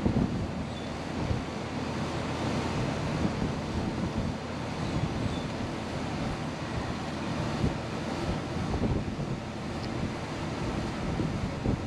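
Moving air buffeting the microphone: a steady rushing noise with an uneven low rumble.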